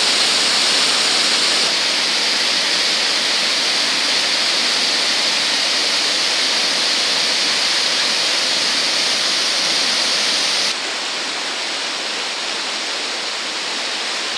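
Steady rushing of white water pouring over a weir and through river rapids. The sound changes abruptly twice and is a little quieter from about eleven seconds in.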